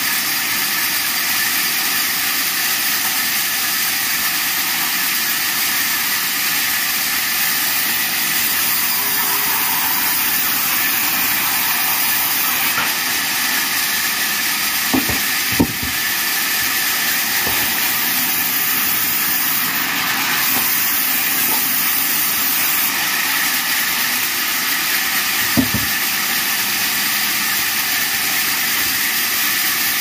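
Vertical band saw running steadily while wood slabs and logs are fed through the blade: a constant hiss with a steady high whine. A few knocks of wood against the saw table, two about halfway and one more about two thirds of the way in.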